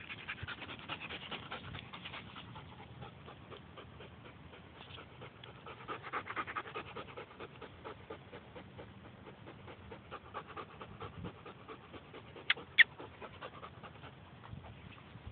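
Bernese mountain dog lapping water from a bowl, then panting rapidly close to the microphone. Two short, sharp, high-pitched sounds come late on.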